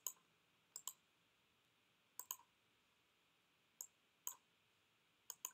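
Computer mouse clicks, about six over a few seconds, several heard as a quick press-and-release pair, against near silence.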